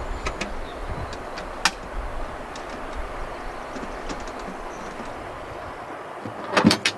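Wind rumbling on the microphone, with a few light clicks scattered through it. The rumble drops away about six seconds in, and a quick cluster of sharp knocks just before the end is the loudest sound.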